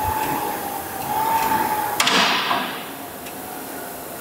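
Air-resistance ergometer's fan flywheel whirring with a slightly wavering tone, a sharp clack about two seconds in, and the sound getting quieter after that.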